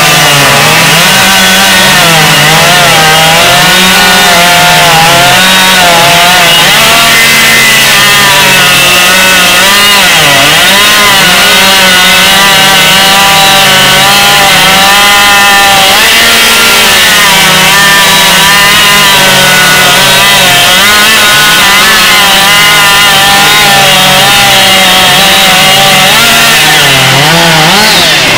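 Two-stroke chainsaw running flat out and cutting through a log, very loud, its engine pitch dipping and recovering as the chain loads up in the wood, with a short rise in revs near the end.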